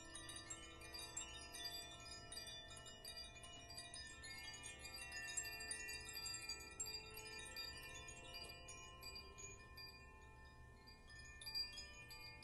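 Two hand-held chimes shaken in the air, a soft, continuous tinkling of many bell-like notes at different pitches, thinning a little near the end. A lower, steady ringing fades out during the first few seconds.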